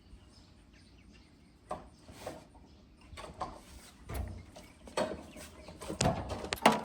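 Toolbox drawers and their contents being handled: scattered clicks and knocks that start after a quiet second and a half and grow more frequent and louder toward the end.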